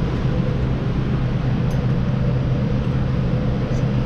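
Steady low mechanical hum running in the background, with a couple of faint small clicks.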